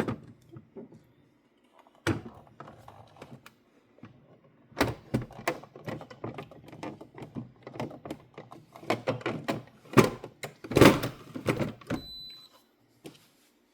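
Irregular clicks, knocks and clattering of plastic coffee-machine parts being handled, such as the water tank being refilled and set back in place. A short high beep sounds near the end.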